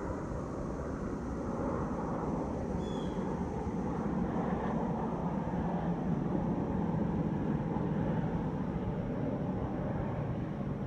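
Steady low rumble of distant engine noise that swells slightly in the middle and eases off near the end, with one short high chirp about three seconds in.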